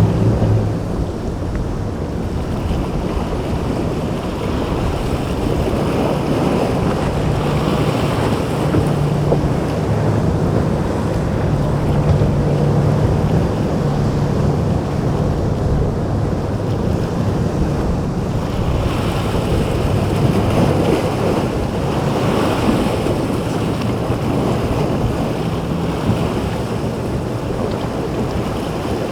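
Waves breaking and washing in the inlet with wind buffeting the microphone, while boat motors hum steadily underneath.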